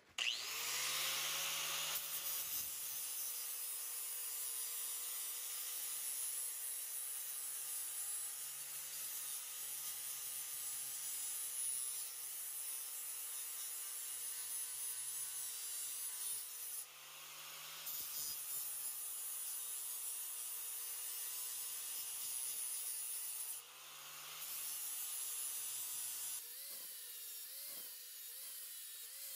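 Angle grinder with a 60-grit flap disc grinding the edge of a steel axe head: a steady motor whine over a grinding hiss, easing off briefly twice. Near the end it gets quieter and the pitch wavers.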